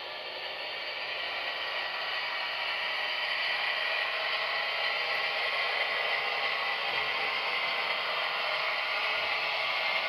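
Gauge 0 model locomotive running along the track, its electric motor and gear drive whirring with wheel-on-rail clatter, getting louder over the first few seconds as it approaches and then holding steady.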